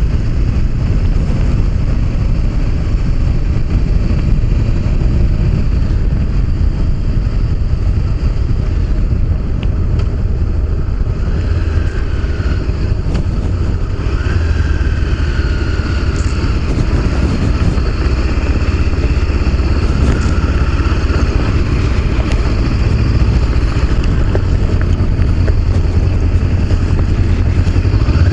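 Honda CB500X's parallel-twin engine running as the motorcycle rolls along at low speed, with wind noise over the action-cam microphone. The engine note shifts up and down slightly partway through.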